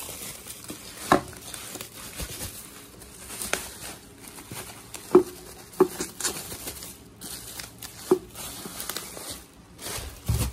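Plastic wrapping and bubble wrap crinkling and rustling as wrapped motorcycle parts are handled, with about five sharp clicks and knocks at irregular moments.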